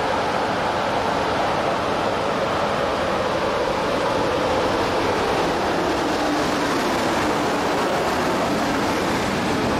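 DB class 112 electric locomotive pulling a double-deck regional train out of the station and passing close by. Its running and the wheels on the rails make a steady noise, with a faint low hum coming in during the second half.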